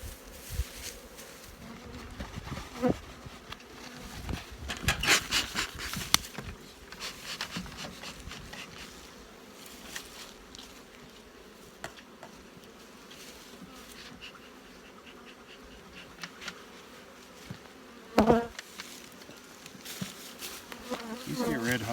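Honeybees buzzing as a steady hum around the open hives, with several knocks and clatters of wooden hive equipment being handled, the loudest about five seconds in and again about eighteen seconds in.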